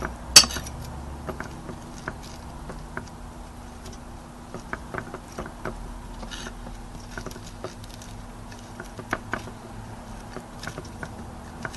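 Light scattered taps and small clicks of syrup-coated rice cake sticks being turned and pressed into cinnamon powder and crushed peanuts in a dish, with one sharper click just after the start.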